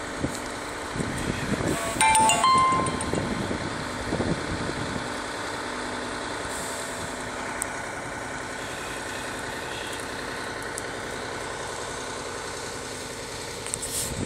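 Fire engine's motor running steadily as it drives the water pump, with a brief loud squeal about two seconds in.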